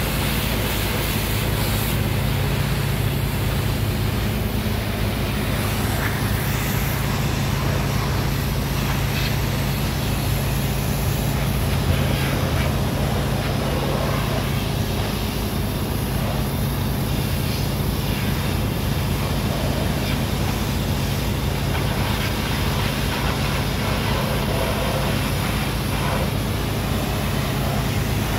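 A high-pressure water gun hissing steadily as it sprays down a concrete mixer truck, over a constant low drone of running machinery.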